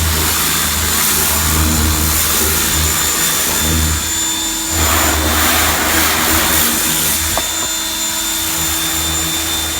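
Ryobi 1600 PSI electric pressure washer running and spraying through its spinning turbo nozzle: a steady high motor-pump whine over the hiss of the water jet, with a low pump hum that drops in and out. The spray hiss thickens about halfway through.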